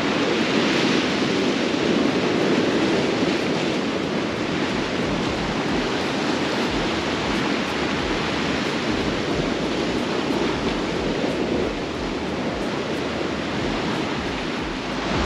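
Sea surf washing against a rocky shore: a steady rushing noise with no distinct breaks.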